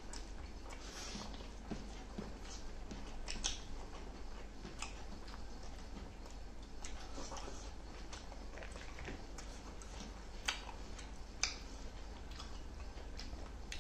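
Close-miked eating by hand: chewing, lip smacks and fingers squishing rice and pulling at roast chicken, a string of small clicks and wet squelches, with two sharper clicks about ten and eleven seconds in. A steady low hum lies underneath.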